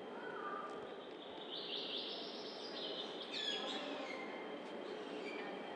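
Small birds chirping and twittering in short high notes, the loudest run a little under two seconds in and a quick flurry of chirps after about three and a half seconds, over a steady background murmur.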